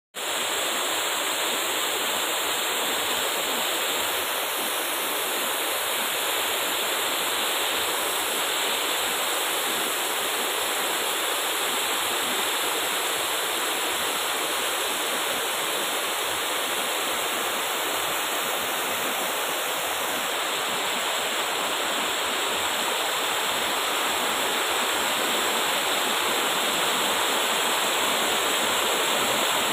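Small waterfall and stream rapids cascading over rock slabs: a steady rushing of water.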